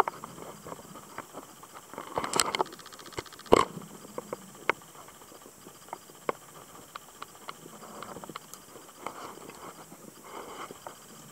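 Underwater sound picked up by a snorkeller's camera just below the surface: water moving around the housing with scattered sharp clicks and crackles, and two louder splashy knocks about two and a half and three and a half seconds in.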